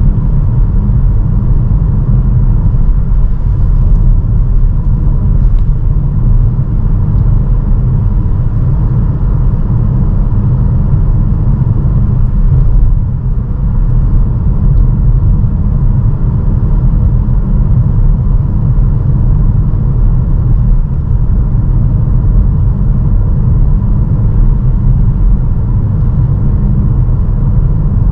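Honda HR-V e:HEV hybrid driving at a steady speed through a tunnel on Goodyear UltraGrip Ice 2 winter tyres: a loud, steady low rumble of road and wind noise.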